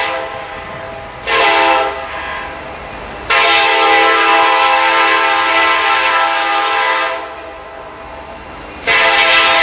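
Multi-note air horn of an approaching freight locomotive. A blast ends just after the start, then comes a short blast, then a long blast of about four seconds, and another long blast begins near the end. This is the long-long-short-long grade-crossing warning.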